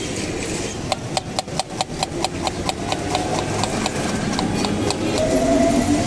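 Knife chopping a red onion on a wooden cutting board: a rapid run of knocks, about six a second, starting about a second in and tapering off. A steady tone comes in near the end.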